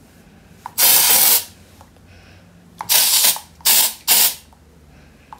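Aerosol spray can sprayed in four bursts of hiss: one of about half a second near the start, then three short ones in quick succession around three to four seconds in.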